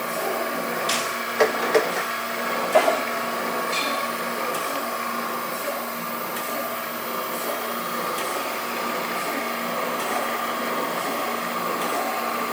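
Chevalier FSG-1020AD surface grinder running its automatic cycle, its hydraulic table drive humming steadily. A few sharp clicks come in the first three seconds.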